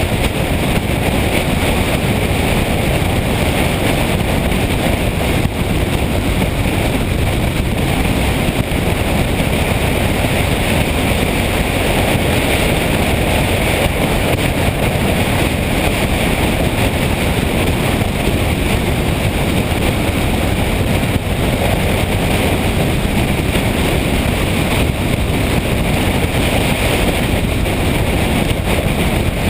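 Steady wind noise on the microphone of a moving motorcycle, mixed with the engine running at an even speed and road rush while riding.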